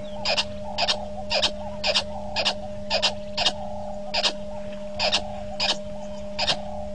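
An animal making short, sharp clicking calls over and over, often in pairs, two or three a second, over a steady electrical hum.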